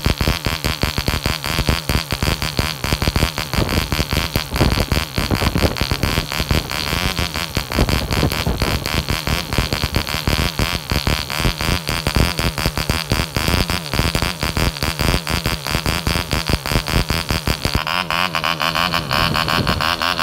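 OTM Stryz 1.5 cc model diesel engine running on a test stand, driving a 9x6 propeller with a fast, rough, slightly uneven buzz. It is set very rich and under-compressed, as is usual when running in a new cast-iron-piston engine. The note turns sharper near the end.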